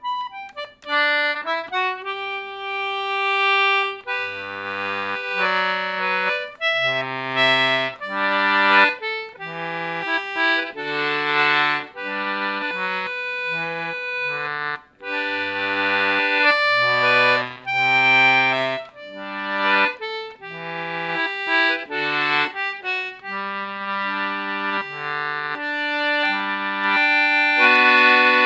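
30-button Jeffries G/D Anglo concertina played solo: a steady melody of reedy notes with lower bass notes and chords sounding on and off underneath.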